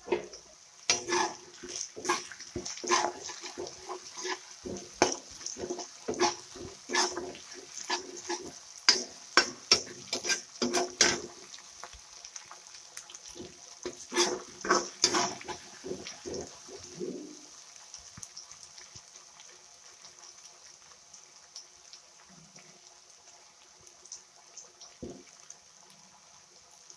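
Ginger paste and shredded vegetables frying in hot oil in a pan, sizzling, while a spatula knocks and scrapes against the pan again and again. The stirring stops about 17 seconds in and the sizzle fades to faint.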